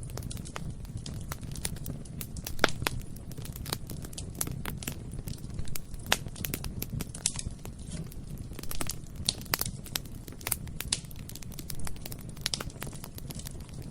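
Bonfire burning: a steady low rumble of flames with irregular crackles and sharp pops of burning wood, a loud pop about a third of the way in.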